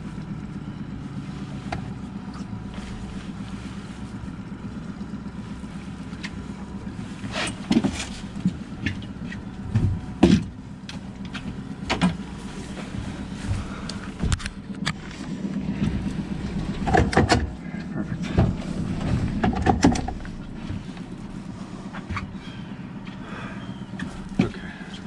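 Outboard motor running steadily at low speed, a constant low hum, with scattered knocks and clatters as the rod and landing net are handled in the boat, loudest around the middle.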